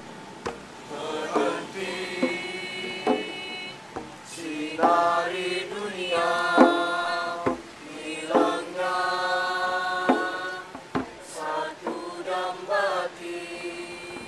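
A group of young performers singing together in chorus, a chant-like song in phrases of long held notes. A few sharp knocks fall between the phrases.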